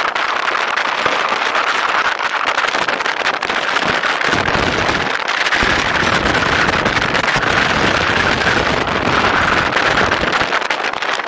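Steady rush of wind and road noise while riding a personal electric vehicle, with heavier low wind buffeting on the microphone from about four seconds in.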